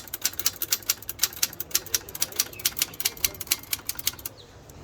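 Typewriter being typed on: a quick, uneven run of sharp key strikes, about seven a second, that stops shortly before the end.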